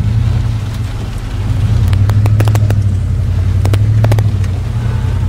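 Car driving, heard from inside the cabin: a steady low drone of engine and road noise, with two short clusters of sharp clicks about two and four seconds in.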